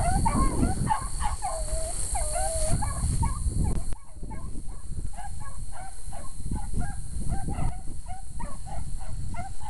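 Beagle baying on a rabbit's trail: a steady string of short, yelping calls that come faster and fainter after about four seconds.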